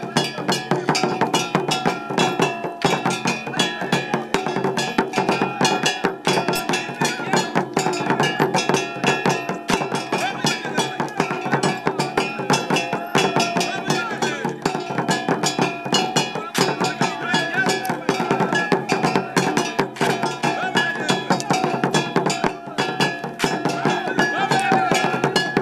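Dogon masked-dance music: fast, dense drumming and struck percussion, with voices chanting over it.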